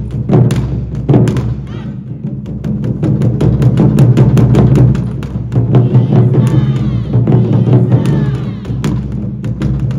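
Taiko drums beaten in a fast, steady rhythm. A higher tone with a sliding pitch joins for a few seconds after the middle.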